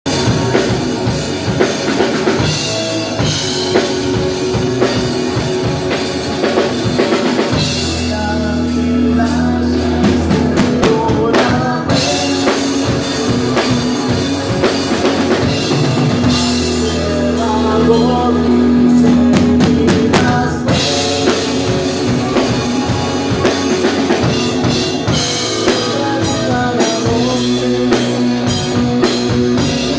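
Rock band playing live: a drum kit beating steadily under bass and guitar, with long held low notes in two stretches.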